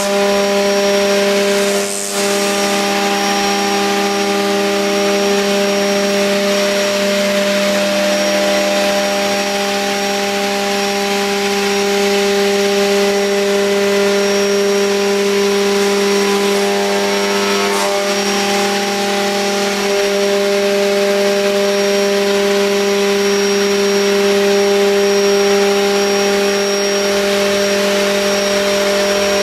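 CNC router running, its spindle giving a steady whine of several held tones while the cutter routes a curved profile through a black sheet, with an even cutting noise underneath. The tones shift briefly about two seconds in and again about two-thirds of the way through.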